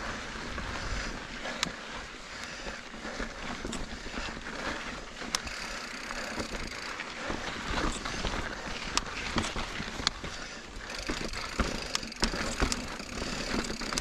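Giant Reign Advanced Pro 29 mountain bike ridden over rough singletrack: a continuous rush of tyres rolling on rock and grit, with scattered sharp clicks and knocks from the bike.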